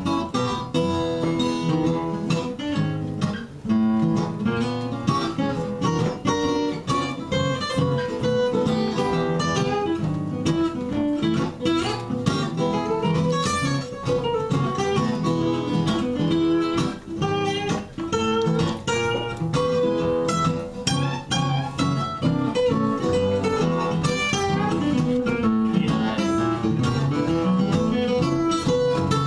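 Two acoustic guitars playing an instrumental tune together, with quick picked notes over a steady rhythm.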